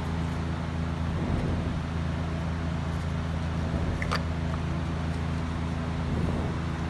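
A steady, low engine hum runs throughout, with a single sharp click about four seconds in as an ignition coil or its connector is fitted onto the engine.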